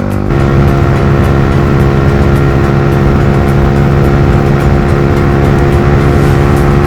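Yamaha R15 V3's 155 cc single-cylinder engine, fitted with a loud aftermarket exhaust, pulling hard at high speed. It gets abruptly louder shortly after the start, then holds a steady high-rpm drone.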